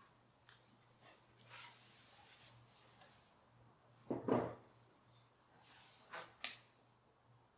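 Walnut stool being turned over and set down on a wooden bench: a faint rustle, then a dull wooden knock about four seconds in, and two lighter taps a couple of seconds later.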